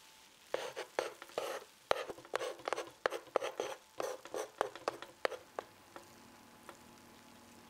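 Wooden spatula scraping and pushing fried rice across a BRUNO hot plate's cooking surface: a quick run of scrapes and knocks that starts about half a second in and stops after about five seconds, followed by a single light tap.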